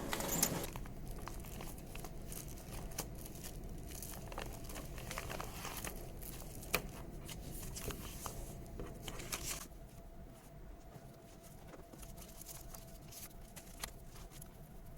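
Faint crinkling with scattered small clicks and ticks, quieter in the last third.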